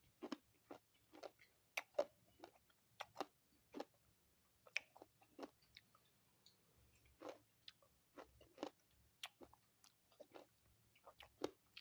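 A person chewing and biting fruit close to the microphone: faint, irregular wet crunches and mouth smacks, about two a second.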